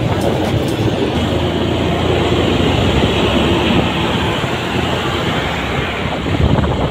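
Motorcycle riding at about 40 km/h: its engine running steadily under a constant rush of road and wind noise, with truck traffic alongside.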